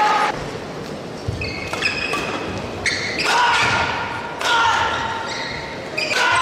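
Badminton doubles rally: sharp racket strikes on the shuttlecock about once a second, with short squeaks of shoes on the court mat, ringing in a large arena hall.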